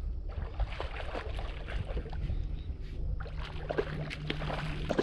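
Water lapping and splashing against a small boat's hull, an irregular crackle of small splashes, over a low rumble of wind on the microphone. A faint steady low hum joins in a little past halfway.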